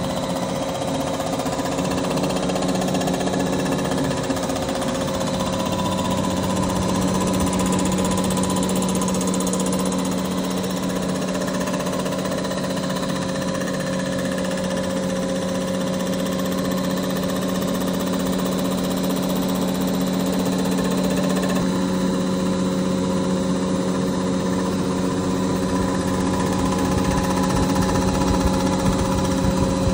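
Milling machine's face-milling cutter head running steadily as it takes a light 0.01 mm skim cut across the face of an outboard crankcase cap: a constant machine hum with a continuous cutting noise. About two-thirds of the way through the sound changes a little.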